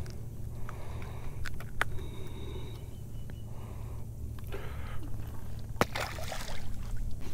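A cast from a boat with a baitcasting rod and reel: a few sharp clicks, then a sharp click and a splash at the lake's surface about six seconds in, over a steady low rumble.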